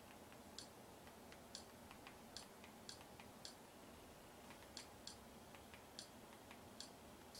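Soft, irregular clicks at near-silent level while a media-centre menu is stepped through by remote: about ten sharper clicks spaced roughly half a second to a second apart, with fainter ticks between them.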